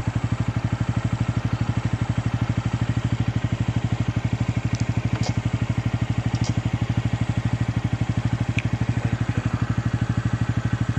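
A vehicle engine idling steadily, with a fast, even thudding pulse of about ten beats a second.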